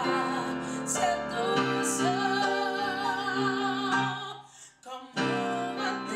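A woman singing live to keyboard accompaniment. She holds a long note with a wide vibrato, the music breaks off briefly about four and a half seconds in, then the keyboard chords come back in.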